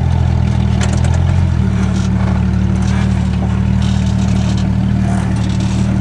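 Off-road vehicle engine running steadily at low speed. Its note shifts once about a second and a half in, and a few light knocks sound over it.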